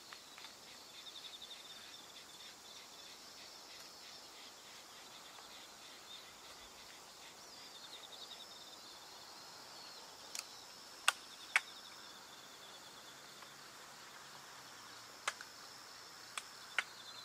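Crickets chirping in a steady high-pitched trill of fast pulses. Several sharp clicks in the second half stand out as the loudest sounds.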